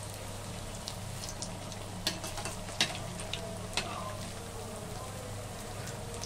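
Semolina and potato squares deep-frying in hot oil in a kadai, sizzling and crackling steadily, with a few louder clicks between about two and four seconds in.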